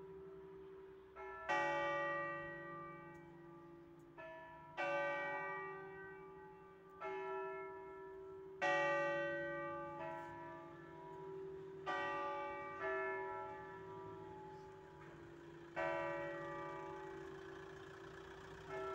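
The four smaller bells of a five-bell church set (tuned from C, cast by Comerio in 1839, two recast by Ottolina in 1948) swinging full-circle in a distesa peal. They strike one after another at uneven gaps of about one to three seconds, and each stroke rings on and fades slowly over a steady hum.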